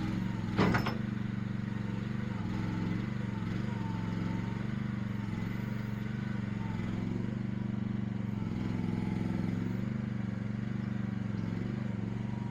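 Small gasoline engine running steadily under light, shifting load, with one sharp metallic knock about half a second in.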